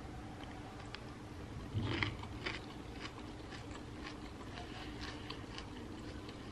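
Quiet chewing of a spoonful of crunchy cucumber and corn salad: soft crunching bites, clearest around two seconds in.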